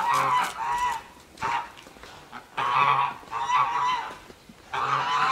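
Domestic geese honking: a run of loud, repeated honks in short bursts with brief pauses between them.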